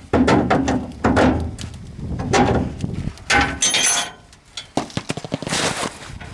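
A 1/2-inch drive ratchet clicking in repeated strokes, with metallic knocks, as the 15mm bolt on a fuel tank strap is worked loose against a wrench braced on the frame.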